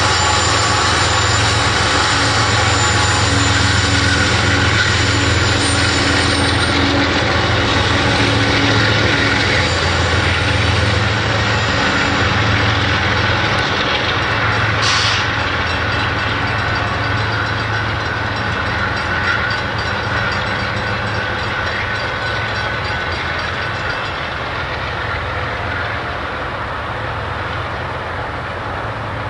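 Union Pacific manifest freight train passing: the diesel locomotives' engines run with a steady low hum as they go by, then the freight cars roll past with wheels clicking over the rail joints. One brief sharp sound comes about halfway through, and the train noise slowly fades toward the end.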